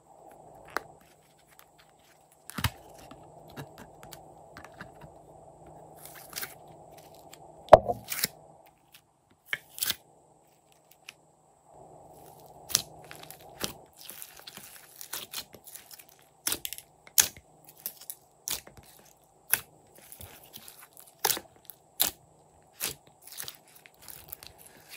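Hands pressing, kneading and folding slime mixed with foam clay in a glass dish, making sticky crackling clicks and pops that come thick and fast through the second half. A couple of louder knocks fall in the first eight seconds.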